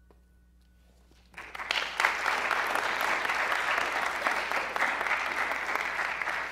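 Audience applause, starting after about a second of near silence, building quickly and then continuing steadily.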